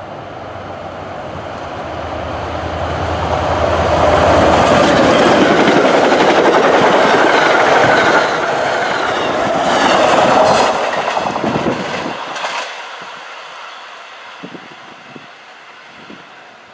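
MBTA F40PH-2C diesel locomotive and its commuter coaches passing at speed: the engine's drone and the wheel noise build over the first few seconds, stay loud through the middle with steel wheels clicking over the rail joints, then fade as the train moves away.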